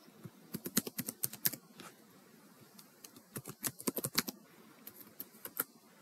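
Computer keyboard typing in quick runs of keystroke clicks: one run about half a second in, another a little after three seconds, and a few more keystrokes near the end.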